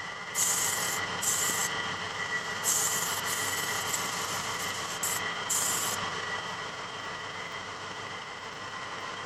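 Sanding on a car bonnet panel: a steady whine runs throughout, and four or five short bursts of rasping rubbing come and go.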